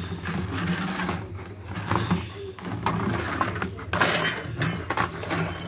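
Golden retriever snuffling and breathing with its muzzle inside a plastic drum, the breaths boomy from the drum. The drum knocks and scrapes on concrete as the dog shoves it around after a ball, with the sharpest knocks about four seconds in.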